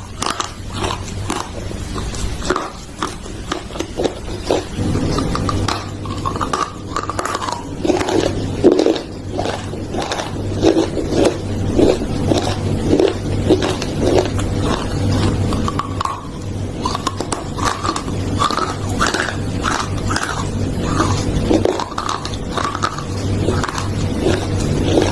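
Close-up crunching and chewing of something hard and brittle, many quick cracking bites in a row, over a steady low hum.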